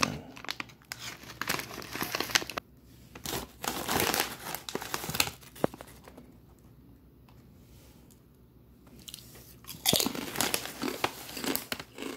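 A foil-lined chip bag crinkling as a hand reaches in, then loud crunching and chewing of a kettle-cooked potato chip in the last couple of seconds.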